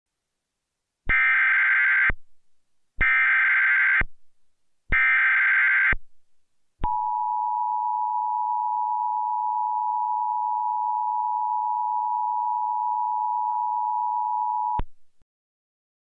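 Emergency Alert System (EAS) SAME header: three one-second bursts of harsh, buzzy digital data tones about two seconds apart, starting about a second in. Then comes the EAS attention signal, a steady two-tone 853/960 Hz alarm that lasts about eight seconds and cuts off sharply. Together they mark the start of a tornado warning broadcast.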